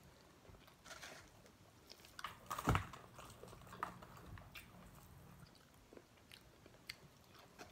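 Chewing and biting into crispy fried chicken wings, with scattered crunches; the loudest crunch comes about a third of the way in.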